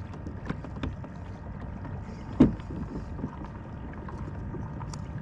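Water and handling noise on a fishing kayak while a hooked fish is being fought, with small scattered clicks and one sharp knock about two and a half seconds in.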